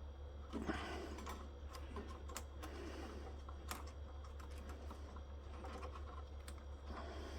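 Faint, scattered small clicks and taps of hands and small tools working a cable connector loose from a solar inverter's circuit board, over a steady low hum.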